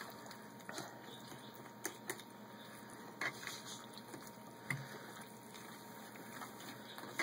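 A spoon stirring chicken and rice in a plastic bowl: faint, irregular clicks and scrapes of the spoon against the bowl as the chicken chunks are broken up.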